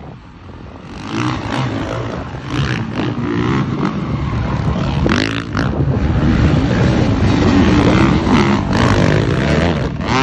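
Several 450-class motocross bikes revving hard and racing past, their engine notes overlapping and rising and falling with the throttle; the sound builds over the first few seconds and stays loud.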